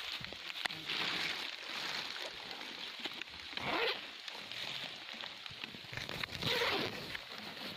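Rustling and crinkling of a woven plastic sack and dry leaves as the sack is handled and brushed through the undergrowth, with three louder swishes.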